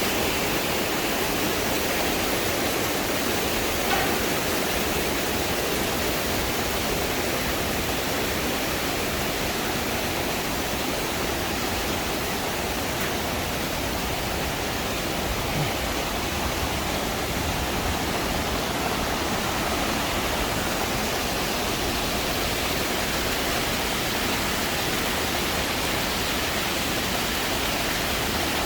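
Waterfall rushing steadily, a constant even noise of falling water.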